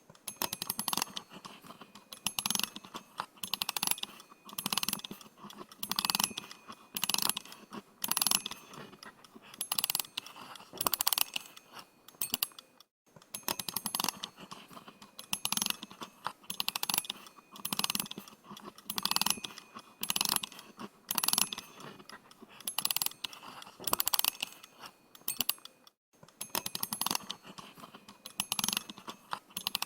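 Analog watch being wound at the crown: strokes of fine ratcheting clicks, about one a second, each a quick run of tiny ticks. The winding stops for a moment twice.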